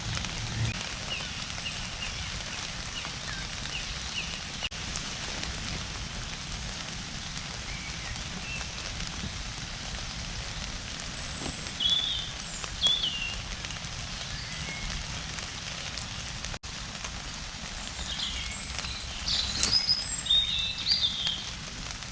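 Steady rain falling, with birds calling over it: a run of short chirps in the first few seconds, more calls about halfway through, and a busier patch of calls near the end.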